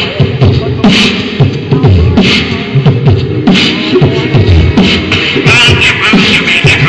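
Human beatboxing through a PA: a steady beat of vocal kick-drum and snare sounds over a held tone, with pitched vocal sounds near the end.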